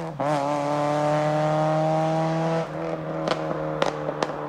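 Mazda MX-5 NC four-cylinder engine fitted with individual throttle bodies, pulling away into the distance. After a brief dip in pitch near the start, a steady engine note rises slightly under power. It drops away about two and a half seconds in, followed by scattered sharp crackles.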